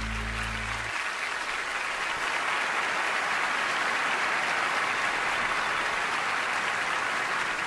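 A large theatre audience applauding steadily. The low held notes of the closing music cut off about a second in.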